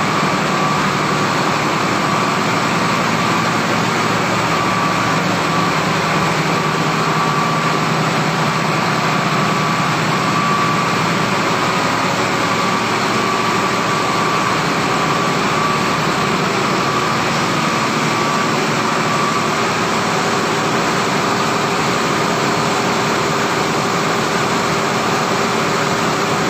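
Cargo pump engine for transferring crude palm oil, running steadily in a ship's engine room. A loud, even machine din with a thin steady whine in it.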